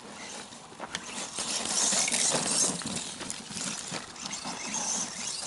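ECX Ruckus 1/10 RC monster truck driving over frozen, rocky ground: rough crunching and clattering of tyres and kicked-up stones, with many small clinks, getting louder about a second and a half in.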